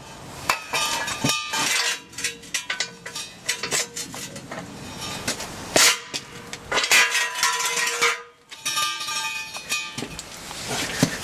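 Irregular metal clanks and knocks, some leaving a ringing tone, from a heavy truck brake drum being handled. The loudest clanks come about six and seven seconds in.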